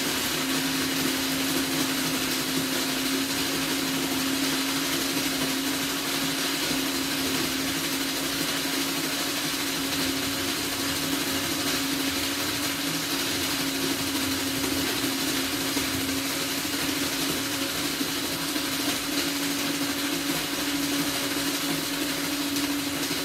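Small electric ice shaver running steadily while shaving ice: a constant motor hum over a broad hiss. The hum rises slightly in pitch near the end.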